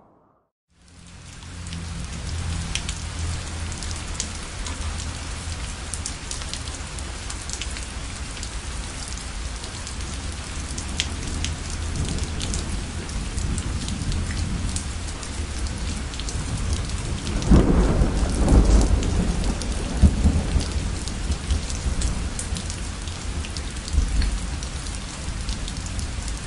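Steady heavy rain pouring down, with a low thunder rumble underneath. A louder roll of thunder comes about two-thirds of the way through. The rain fades in at the start.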